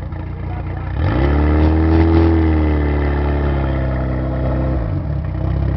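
An off-road 4x4's engine revving hard while the vehicle is bogged in deep mud. The revs jump up about a second in, sag slowly for about four seconds under load, then drop back to a low, rough running sound near the end.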